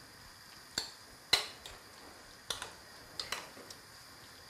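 Metal spoon clinking against a ceramic bowl while stirring a chunky salad: about six sharp taps at uneven intervals, the loudest just over a second in.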